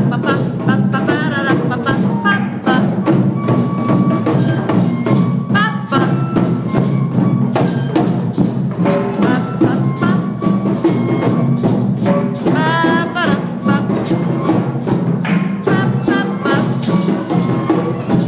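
Drum circle: a group playing drums and hand percussion together in a busy, dense rhythm.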